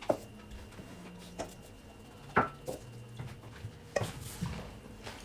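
Cutlery knocking and scraping against plates and bowls while eating: a few separate clinks, the loudest about two and a half seconds in and again at about four seconds.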